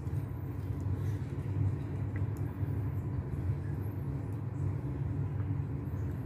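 Steady low background rumble with no clear strokes or rhythm.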